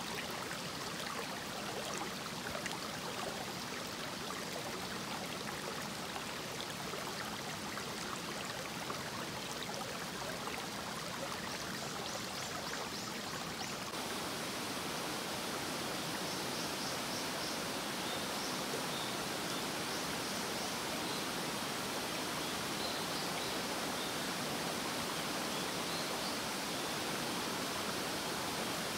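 Shallow mountain stream running over stones: a steady rushing of water. Faint high chirps repeat in short runs in the second half.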